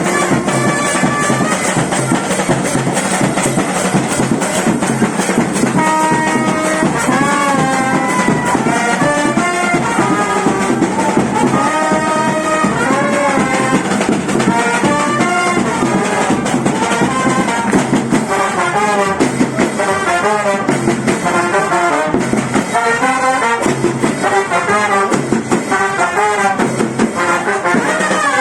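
Brass band playing a melody, the brass instruments carrying a tune that moves up and down.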